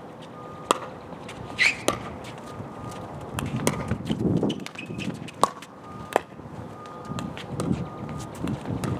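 Pickleball rally: a hollow plastic ball struck back and forth off paddles, a string of sharp pocks at uneven intervals, each with a brief ringing tone. A short rising squeak about one and a half seconds in.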